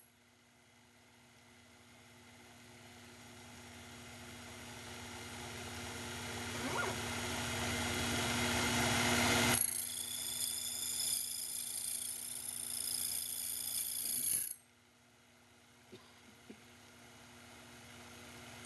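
A Sherline milling machine is running, its slitting saw taking light finishing cuts on brass-sized gear teeth while the CNC rotary table indexes. The running noise swells gradually over the first half. A high whine joins about halfway and then cuts off sharply, leaving a low hum and two small clicks near the end.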